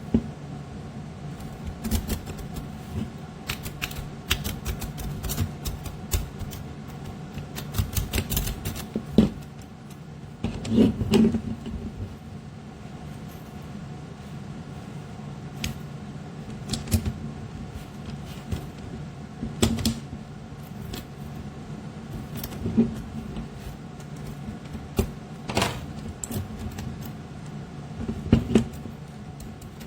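Irregular clicks and short bursts of light clattering, in clusters a few seconds apart, over a steady low hum. The loudest clatters come about nine and eleven seconds in.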